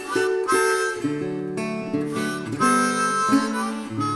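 Instrumental background music: acoustic guitar with a harmonica playing held notes over it.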